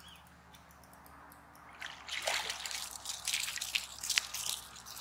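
Hooked northern pike thrashing at the surface by the bank as it is reeled in, splashing and sloshing the water in irregular bursts that start about two seconds in.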